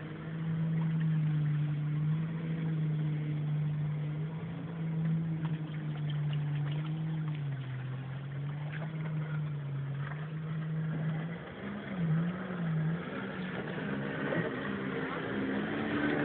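A 300-horsepower jet ski engine running hard at speed. Its pitch sags lower about halfway through. Then it swings quickly up and down a few times and settles at a higher pitch near the end.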